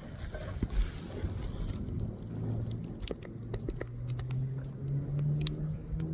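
Clicks and small rattles of a camera being fitted and set on a tripod, over a low hum that slowly rises in pitch in the second half.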